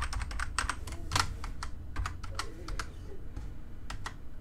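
Typing on a computer keyboard: irregular, separate key clicks as a password is keyed in.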